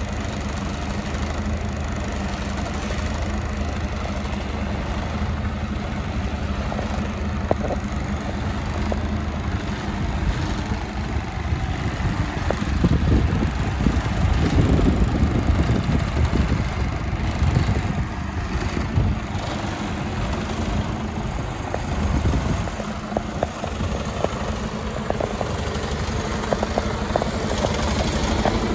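Mercedes Actros 2545 tractor unit's straight-six diesel engine idling steadily. A louder rushing noise comes and goes over it in the middle.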